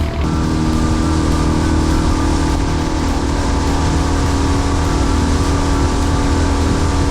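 Boat engine running steadily: a continuous low drone with several steady whining tones over it.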